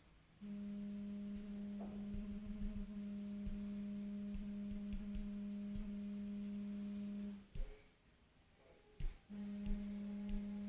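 Samsung Galaxy S7 speaker giving out a steady low hum, the phone's sound fault. The hum runs for about seven seconds, breaks off, and comes back near the end, with light clicks and taps throughout.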